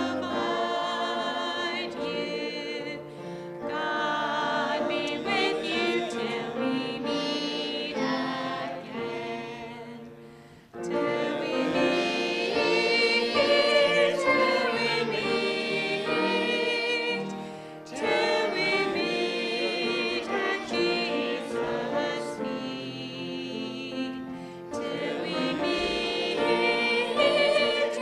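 A group of voices singing a hymn together. The singing fades out and starts again suddenly about ten seconds in, and breaks briefly again near eighteen seconds.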